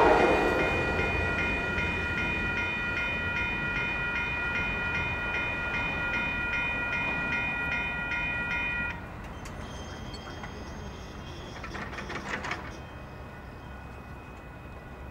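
Railroad crossing bell ringing steadily as the passing train's rumble fades. The bell stops about nine seconds in, leaving quieter background noise with a short burst of noise a few seconds later.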